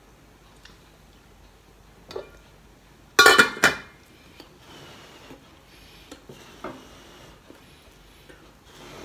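Stainless steel lid set onto a pot, clattering several times in quick succession about three seconds in. Small clicks and knocks of eating by hand are heard around it.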